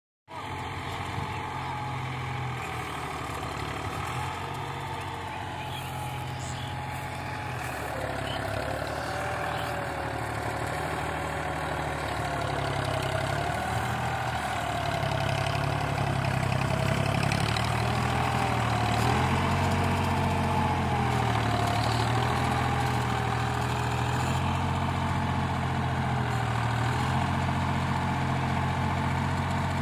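Diesel farm tractor engine running steadily under load while it pulls a cultivator through the soil. The engine note wavers as the load changes, and it grows louder as the tractor comes closer.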